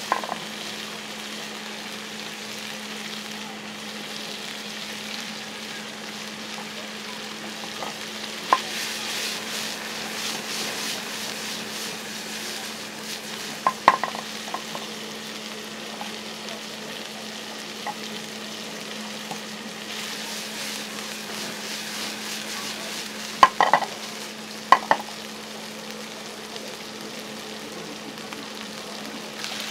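Bulgogi beef and diced onion sizzling in a frying pan over a gas burner: a steady hiss over a steady low hum. It is broken by a few sharp clicks of a utensil striking the pan, in a cluster about halfway and two more near the end.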